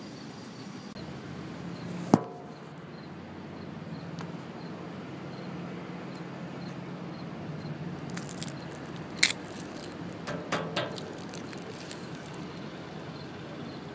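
Steady low hum of outdoor background noise, with one sharp click about two seconds in. Later come a few short crackles and rustles as a candy bag and paper candy straw are handled.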